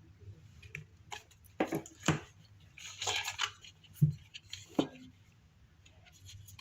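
Pages of the card deck's paper guidebook being turned and handled: a few sharp flicks and taps of paper, with a short rustle about three seconds in.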